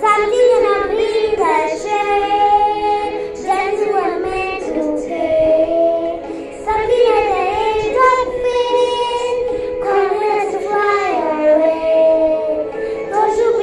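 A girl singing a song into a handheld karaoke microphone, holding some notes long, with the original recording of the song playing along behind her voice.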